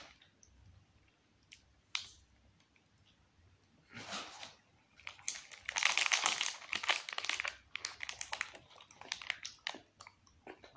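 The plastic wrapper of an ice-cream bar crinkling as it is handled: a dense run of crackles about five seconds in, then scattered crackles, with soft eating sounds in between.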